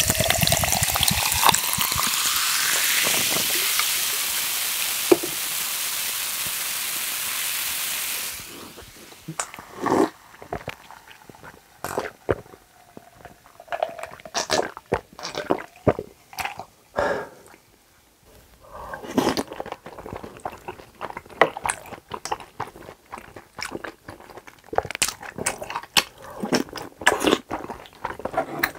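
Coca-Cola poured from a can into a glass jar full of ice, fizzing, with the pitch rising as the jar fills; the pour stops abruptly about eight seconds in. After that come scattered gulps, clinks of ice against the glass jar and close-up mouth sounds of eating.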